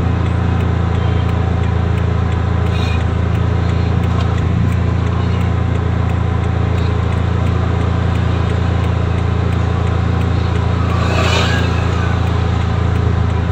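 2010 Toyota Vios four-cylinder engine idling steadily as it warms up, an even low drone with no dip or stumble.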